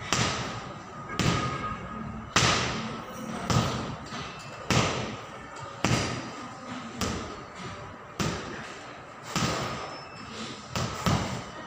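Boxing gloves punching a leather heavy bag, about one hit a second at a steady pace, each a sharp thud.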